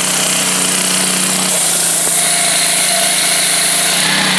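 Honda GX200 single-cylinder four-stroke engine running steadily at full throttle, driving an Interpump W154 plunger pump through a reduction gearbox after the prime valve has been closed to build pressure. About a second and a half in, the engine note drops slightly as it takes more load, and a high hiss grows stronger.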